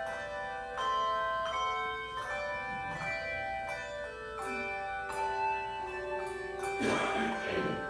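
A handbell choir playing a melody: struck bell notes ringing on and overlapping, with a new note every half second to a second. A brief burst of noise cuts across the bells near the end.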